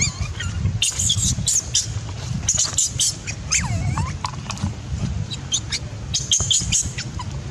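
Baby macaque squeaking and whimpering while it tries to nurse from its mother: clusters of short, high squeaks, with one wavering call that dips and then rises again about halfway through, over a low steady rumble.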